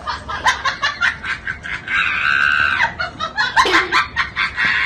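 Laughter in quick, rapid bursts, with a high drawn-out note about two seconds in.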